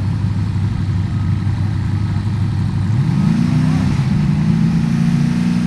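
Off-road competition buggy's engine running at low, steady revs, then revving up about three seconds in and holding the higher revs as it pulls away.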